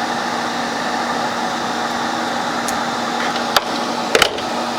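Steady whirr of a fan or small electric motor with a low hum, broken by a few sharp clicks near the end.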